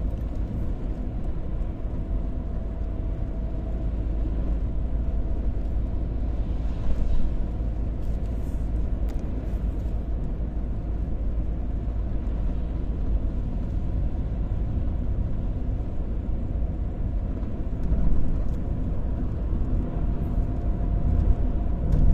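Steady in-cabin road noise of a moving minivan: low engine and tyre rumble on a wet road, swelling briefly twice.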